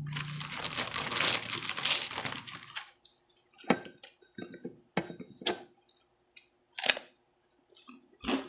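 Crispy pork chicharon crunching as it is bitten and chewed, a dense crackle for about three seconds, then scattered single crunches and mouth clicks.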